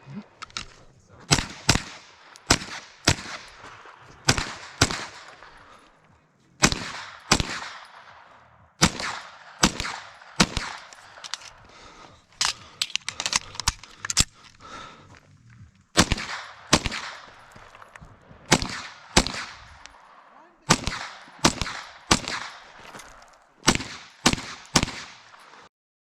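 A competitor's semi-automatic long gun firing a course of fire: dozens of shots in quick strings of two to five, with brief pauses between strings for moving or reloading, each shot echoing briefly.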